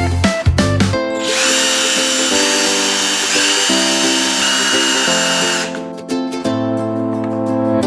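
A small electric motor whirs steadily for about four and a half seconds with a high whine, then stops, over guitar background music.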